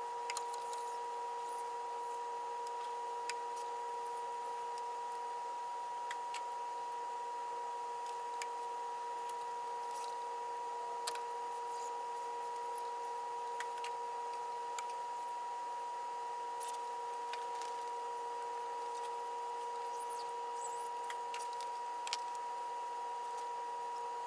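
A steady hum of two pitches, one an octave above the other, with faint scattered clicks and taps.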